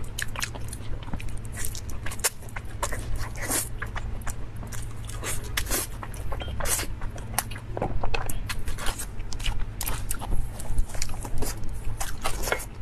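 Close-miked chewing and biting of braised pork knuckle: a quick, irregular string of clicks and smacks from the mouth.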